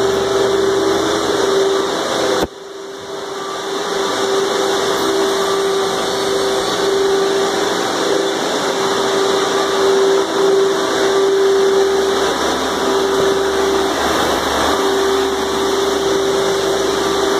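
Wet vacuums running steadily while sucking up floodwater: a constant motor whine over a rushing hiss. About two and a half seconds in there is a click and the noise drops sharply, then builds back up over a second or two.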